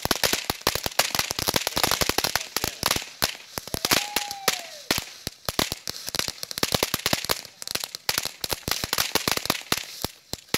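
Ground fountain firework spraying sparks with a crackling effect: a rapid, irregular crackle of sharp pops, several a second.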